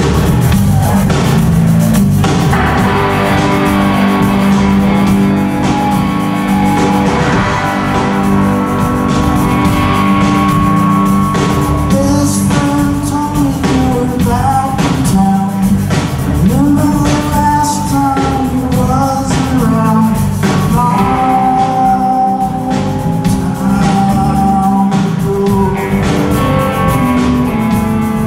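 A rock band playing live: electric guitars, bass guitar and drum kit, with a male voice singing the melody from about halfway through.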